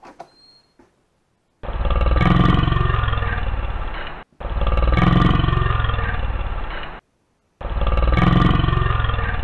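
A dubbed-in snoring sound effect: the same low, rasping snore plays three times, each about two and a half seconds long, with short pauses between.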